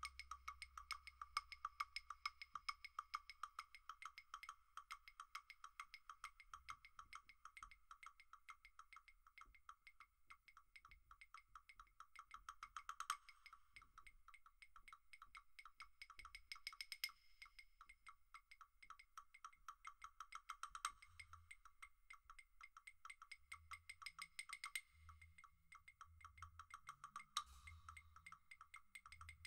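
Two pairs of wooden claves clicking softly in a rapid, steady interlocking stream, with a louder accent every few seconds. Faint low thumps join in past the middle.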